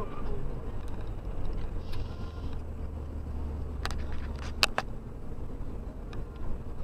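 A car driving on a wet city road, heard from inside the cabin: steady engine and tyre rumble, with a few sharp knocks or clicks about four to five seconds in.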